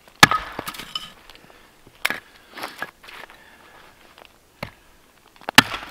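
Small vintage pack axe splitting kindling one-handed on a chopping log: sharp strikes of the axe into the wood, the loudest just after the start and near the end, another about two seconds in, with lighter knocks between.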